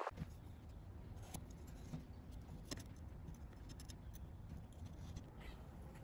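Faint handling sounds at a workbench, with a few light clicks and scratches of a marker and tools over a low steady hum.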